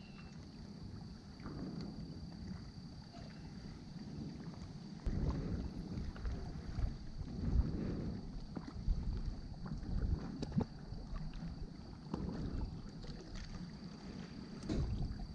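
Lakeside ambience: wind rumbling on the microphone in irregular gusts, stronger from about five seconds in, with a faint steady high-pitched tone and a few light clicks.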